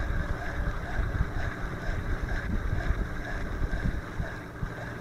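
Wind buffeting the microphone: an uneven, gusty rumble that comes and goes throughout.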